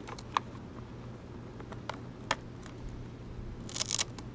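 Shoes being worked under a backpack's elastic bungee-cord lacing: a few sharp clicks and light rubbing, with a louder burst of rustling and clicking near the end.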